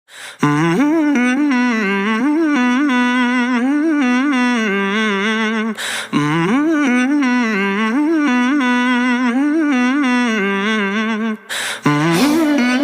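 Background music: a wordless hummed vocal melody of held, ornamented notes, in three phrases with short breaks about six seconds in and near the end.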